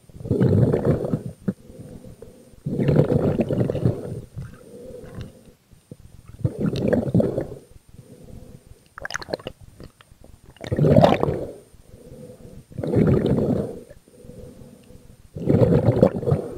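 A spearfisher breathing hard through a snorkel, heard through an underwater camera housing: six muffled gushes of breath and water about every two to three seconds, over a faint steady hum.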